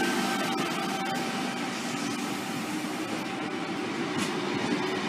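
A Sydney Trains V set double-deck electric train rolling past: a steady rumble of wheels on rail with a faint motor hum.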